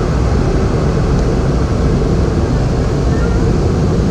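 Steady cabin noise inside a Boeing 717 airliner in flight: a constant low rumble of its rear-mounted turbofan engines mixed with airflow over the fuselage.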